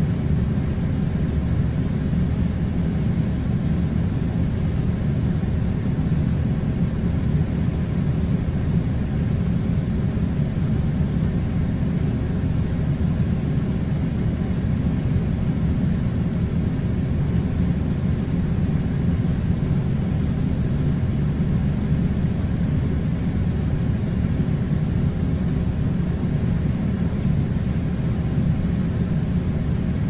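Air conditioning unit running: a steady, even low rumble that does not change.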